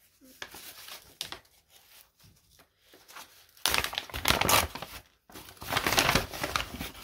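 Brown paper bag rustling and crinkling as a hand rummages inside it, with small scattered rustles at first and two long, loud bouts in the second half.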